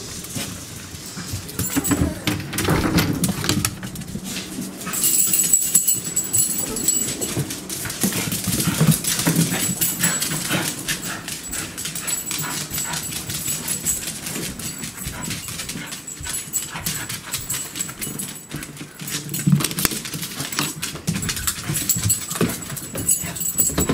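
Small dogs whining and whimpering, eager to be fed, over a run of short sharp clicks and taps.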